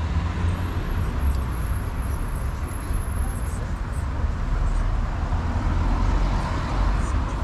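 Tourist road train moving slowly along a town street, heard from aboard: a steady low rumble of its running gear and tyres on the road.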